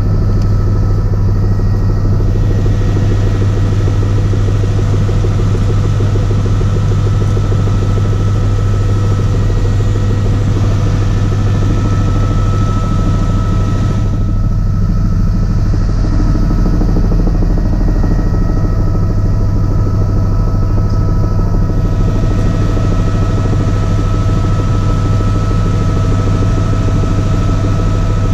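Helicopter in flight heard from inside the cabin: a steady, loud drone of rotor and engine with thin, steady whining tones above it.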